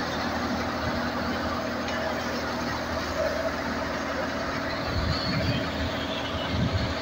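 YTO EF604 tractor's diesel engine running steadily, driving a thresher under load as it threshes toria, the engine drone and the thresher's whir blended into one even hum.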